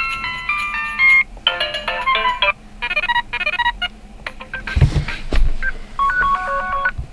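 Default ringtones of a CAT S53 smartphone played in short snippets of about a second each, one after another, each cut off abruptly before the next begins. Near the middle one snippet has a beat with low drum thumps.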